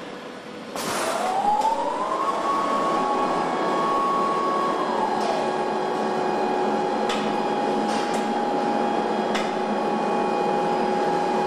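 Electric motor whine of assembly-line machinery over a factory hum. The whine rises in pitch about a second in and holds, then drops to a lower steady tone about five seconds in and stops near the end, with a few sharp clanks along the way.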